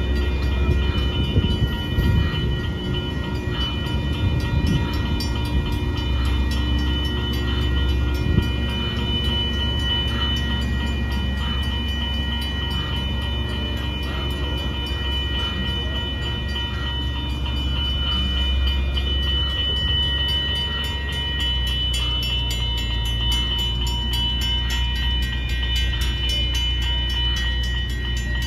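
Passenger train running at the station: a steady low rumble with several steady high-pitched whining tones throughout, and scattered clicks in the first several seconds.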